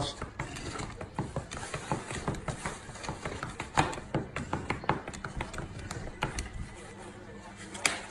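Irregular crackling and clicking of a plastic container and paper being handled.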